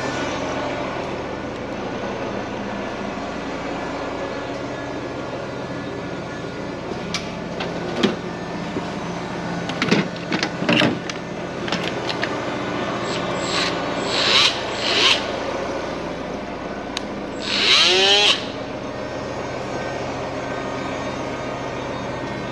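Scattered knocks and scraping from tools and parts being worked during an engine pull, over a steady low hum. About eighteen seconds in there is a brief loud squeal that falls in pitch.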